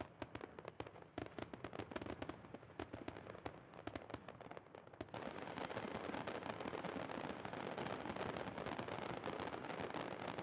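Aerial fireworks display: a rapid run of bangs and crackles that thickens about halfway through into a dense, continuous crackling barrage.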